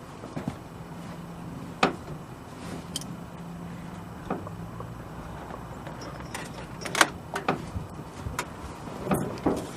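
Scattered clicks and knocks of small parts and tools being handled while wires are connected to a switch, over a steady low hum.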